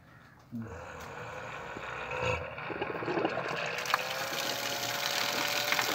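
A 12-volt DC solar water pump starting up and pumping. A rush of water begins suddenly and grows steadily louder as the water jets from the outlet pipe. A steady motor whine joins about four seconds in, rising slightly in pitch.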